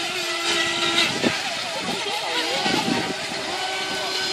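Several radio-controlled model speedboats' motors whining at different held pitches, the tones sliding up and down as the boats speed up and slow down.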